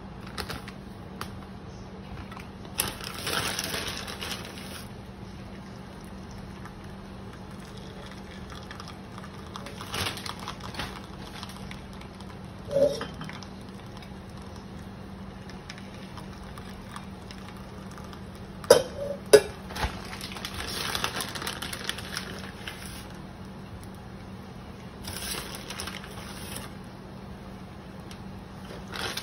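Kitchenware handled at a cast-iron skillet: a plate and utensils clinking now and then, with a few short scraping passes and two sharp clinks past the middle. A steady low hum runs underneath.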